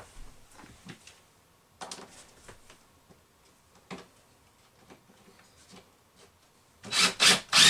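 A few faint knocks of handling, then near the end three quick, loud scraping strokes on wood, as in sanding, rasping or sawing by hand.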